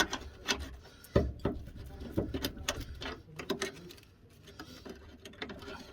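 Irregular clicks and knocks of hand tools on metal during work on a car's front suspension drop link, with a sharper knock at the start and another about a second in.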